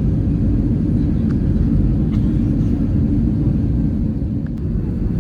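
Steady low rumble of an Airbus A320's cabin noise in flight: engine and airflow noise heard from inside the passenger cabin.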